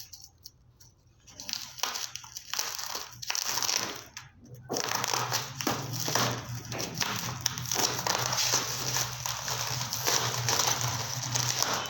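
Packaging being handled and opened by hand: plastic or paper wrapping crinkling and crackling in bursts of many small clicks, starting about a second in.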